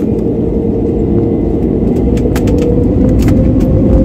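Jet airliner taxiing, heard from inside the cabin: a loud, steady rumble with an engine hum that rises slightly partway through, and a few light clicks in the second half.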